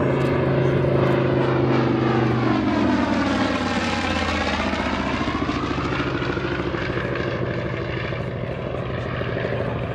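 Grumman TBM Avenger's Wright R-2600 radial engine and propeller running hard in a low flypast, the engine note dropping in pitch as it passes about two to three seconds in, with a sweeping, phasing sound as it goes by.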